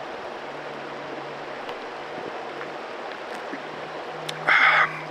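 Steady rush of the Hart River flowing over its gravel bed. About four and a half seconds in comes a short, loud breathy sound.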